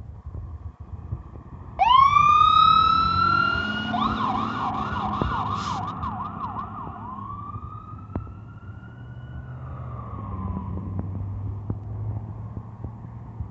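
Fire engine siren starting about two seconds in with a rising wail, switching to a fast yelp for about three seconds, then back to a slow wail that fades as the truck pulls away. The truck's engine rumbles underneath throughout.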